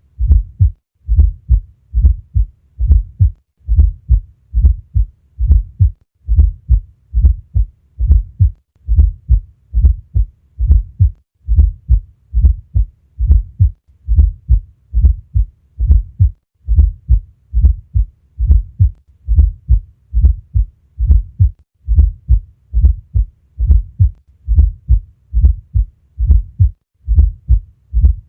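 Heart sounds heard through a stethoscope: low, dull beats repeating in a steady rhythm, a little over one heartbeat a second.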